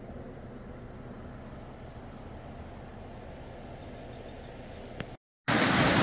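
Low steady rumble with a faint hum, then a click, a brief dropout, and a small mountain stream splashing down over rocks, much louder, in the last moment.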